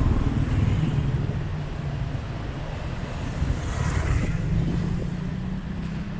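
Road traffic close by: vehicle engines running steadily, with a vehicle passing about four seconds in with a brief rush of tyre and air noise.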